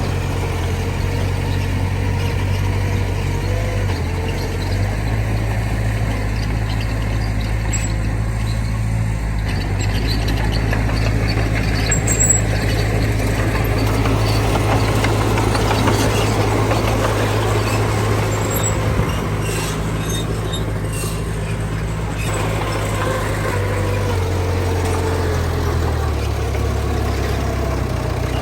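Heavy diesel machinery running, a dump truck and a bulldozer at work. The engine note steps up and down a few times, with a rougher rushing noise through the middle.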